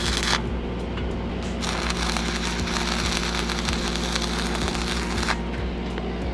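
Stick welding arc crackling and sizzling on steel pipe. It breaks off just after the start, strikes again about a second and a half in, and stops about five seconds in.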